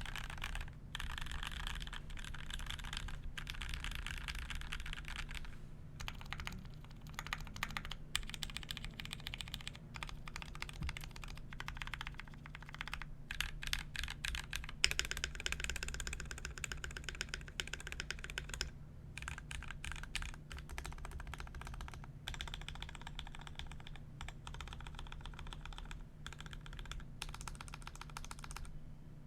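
Typing on a GMMK Pro mechanical keyboard with lubed Gateron Milky Top Black linear switches (75 g springs), an aluminium plate with the foam removed, and ABS keycaps. Runs of fast keystrokes are broken by a few short pauses, over a low steady hum.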